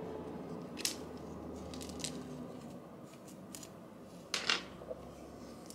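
Rods being taken out of set hair: a few short, crisp clicks and rustles, the loudest about four and a half seconds in.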